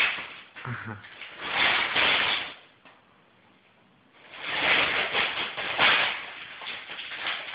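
Gift-wrapping paper being torn and rustled by a small child's hands, in two longer bursts with a quiet gap of about a second around the middle.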